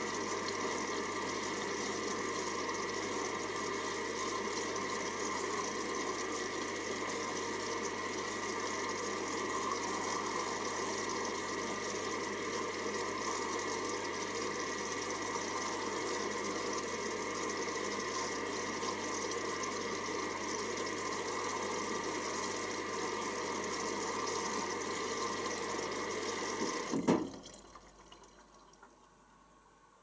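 Hoover Optima OPH714D washing machine filling with water for the final rinse: water rushing in through the inlet valve, with a low steady hum. Near the end the inlet shuts off with a click and the trickle fades away.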